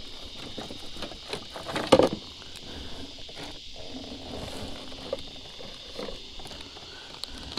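Small clicks and rustles of a fishing lure and line being handled close by, with one sharp knock about two seconds in, over a steady high-pitched insect drone.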